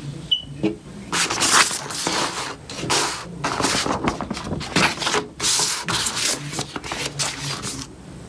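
Paper and packaging rustling as a glossy fold-out quick start guide is folded and a rack unit is handled, in an irregular run of short scrapes and rustles.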